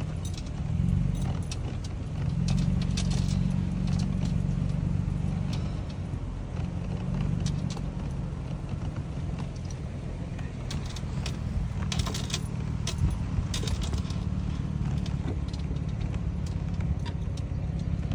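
Inside a vehicle driving slowly over a rutted dirt road: a steady low engine and road drone, with scattered rattles and clicks from the cabin that bunch together about two-thirds of the way through.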